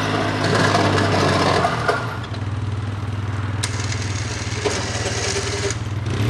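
2008 Polaris Sportsman 700 X2 EFI ATV's twin-cylinder engine running steadily at low speed while it pushes snow with its plow blade. A louder, rougher noise rides over the engine for the first two seconds, then eases, leaving the steady engine note.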